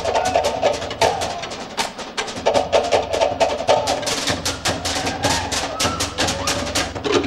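Cook Islands drum-dance ensemble playing: wooden slit drums (pate) struck in a fast, driving rhythm over a deeper drum beat.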